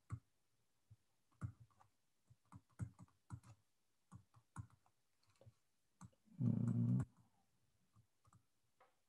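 Stylus tapping and scratching on a pen tablet as a word is handwritten, making a string of faint, irregular light clicks. A brief, louder low sound of about half a second comes about six and a half seconds in.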